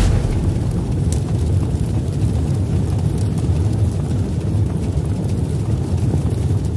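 A steady, deep rumble with a faint hiss over it and no tune: a rumbling intro sound effect under an animated title card.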